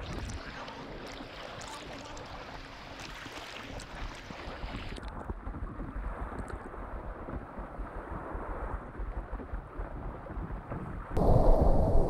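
Sea water sloshing around a floating board, with wind buffeting the camera microphone. The sound turns muffled about five seconds in, and a sudden louder low rush sets in about a second before the end.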